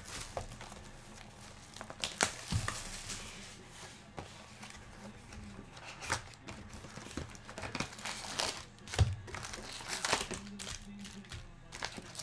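Plastic shrink-wrap being torn off a cardboard trading-card box and crinkled by hand: irregular crinkling with a few sharper rips. The box is then opened and the foil card packs handled.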